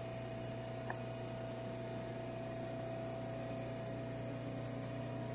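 Steady hum of a running micro-hydro turbine and generator plant: a low drone and a higher steady tone over a soft hiss, with a faint tick about a second in.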